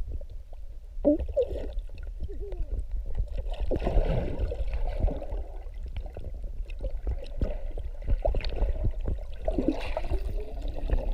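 Muffled underwater sound: a steady low rumble with gurgling water, many short clicks and a few wavering, warbling tones.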